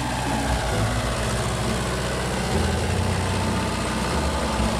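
An engine running steadily with a low hum, its pitch shifting a little twice.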